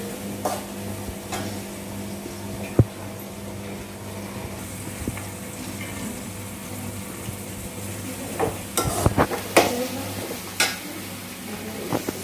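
Sliced onions and green chillies sizzling as they sauté in coconut oil in a large aluminium pan, with a metal ladle stirring and knocking against the pan, the knocks coming in a cluster about eight to eleven seconds in. A steady low hum runs underneath.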